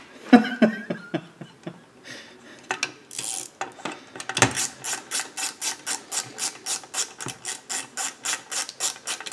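Hand ratchet with a long extension clicking while it runs the crankcase bolts of a Farmertec 372 chainsaw case down. A few scattered clicks and rubbing come first, then from about four seconds in a steady run of about four clicks a second.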